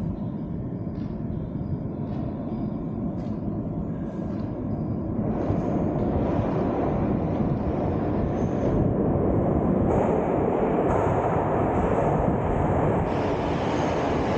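Metro train coming into the station, its low rumble growing louder over several seconds and then running steadily, echoing through the underground hall.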